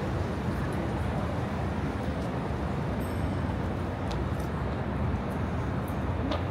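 City street traffic: a steady low rumble of passing vehicles, with a few faint ticks.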